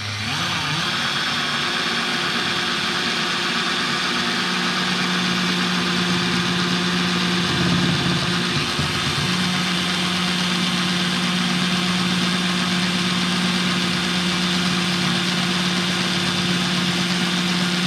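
Parkside cordless angle drill running steadily as its 6 mm bit bores through a piece of C16 softwood timber, the motor's pitch sagging briefly under load about eight seconds in. The drill gets through but felt very underpowered to its user, taking a bit of a go to get through.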